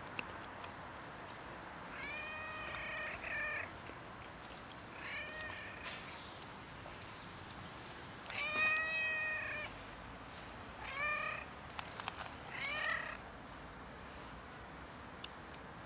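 A tabby-and-white stray cat meowing again and again, about five meows, the loudest and longest just past the middle, as it asks for attention while being stroked.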